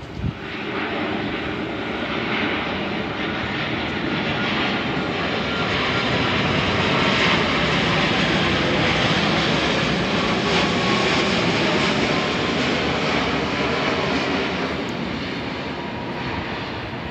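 Boeing 787-8's GE GEnx turbofan engines on landing approach with gear down, passing overhead: a steady jet rumble and rush that swells to its loudest midway, with a faint engine whine, then fades as the airliner moves away.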